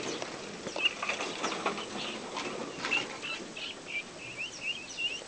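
Chicks peeping: a run of short, thin, high chirps a few times a second, starting about a second in, over light rustling and knocks.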